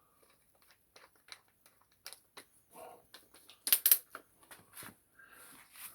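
Scattered small clicks and rattles of metal hand tools and drill bits being handled on a workbench while the drill bit is changed for a 2 mm bit, with a louder cluster of clicks about four seconds in.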